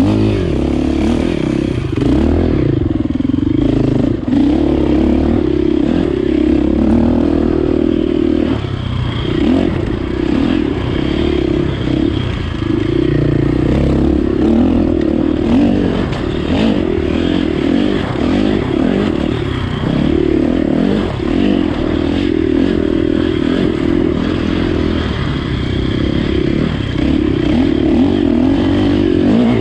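Dirt bike engine under hard riding, revving up and down again and again as the throttle is opened and shut, with some clatter from the bike.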